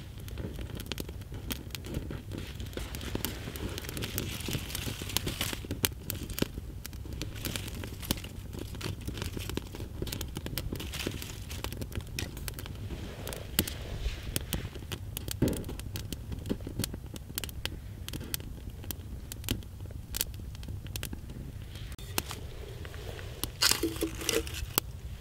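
Small twig campfire crackling and popping, with dry twigs and leaves rustling as it is fed. Near the end, a metal cup is set into the flames with a short clatter.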